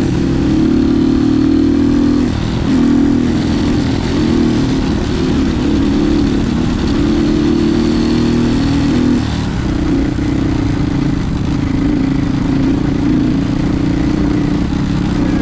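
Motorcycle engine running under way, a steady low drone that dips briefly twice, as if at gear changes or throttle lifts.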